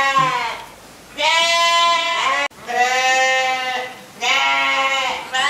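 Young farm animals bleating: a string of loud, long calls, each about a second long, separated by short pauses.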